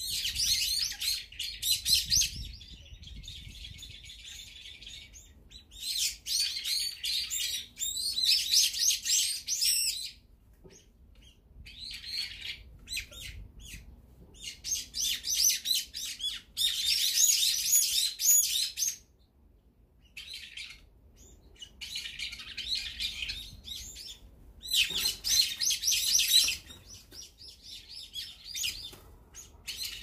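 Brown-eared bulbuls calling: high-pitched, rapid chattering calls that come in spells of a few seconds, separated by short quieter gaps.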